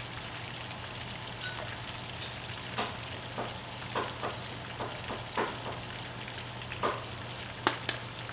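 Sliced onions in oil sizzling in a nonstick pan as it heats up: a steady light hiss with scattered crackles and pops, the sharpest near the end. A low steady hum runs underneath.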